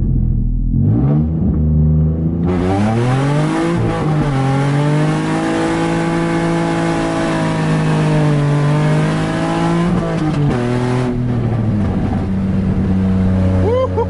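Nissan 350Z's 3.5-litre V6 revving up and launching, running effectively as open headers because of a major exhaust leak, and sounding nasty. The engine note rises over the first couple of seconds, a loud harsh rasp joins about two and a half seconds in and holds through a long pull, then the pitch drops back and the rasp cuts off near the end, leaving a steadier run.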